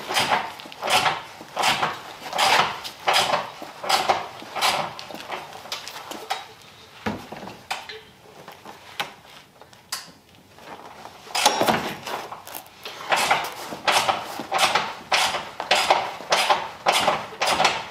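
Hand tools working the rear subframe bolts under a car: a run of short metallic clinks about two a second. They pause for a few seconds midway, then start again.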